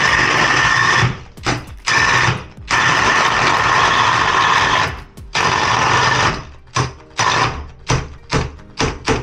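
Heavy-duty power drill boring through the wooden stud behind a plasterboard partition, its motor whining in long trigger bursts for the first five or six seconds, then in a quick run of short pulses.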